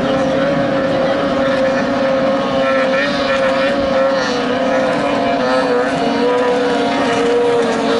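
A 15 hp outboard motor on a small racing boat running flat out: a steady, high-pitched engine drone that sags slightly in pitch in the second half.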